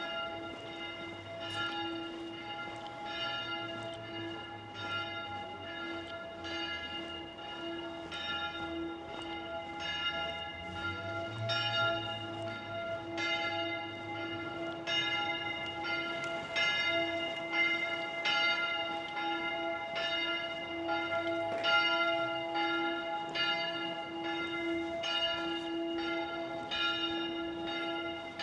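Church bells ringing a peal: several bells struck one after another, a strike roughly every second, their tones ringing on between strikes.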